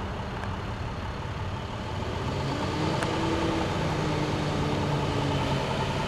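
School bus engine running as the bus drives slowly toward the listener, growing gradually louder.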